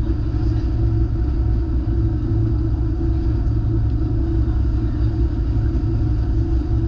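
An engine running steadily under way: a constant low rumble with a steady hum above it, unchanging throughout.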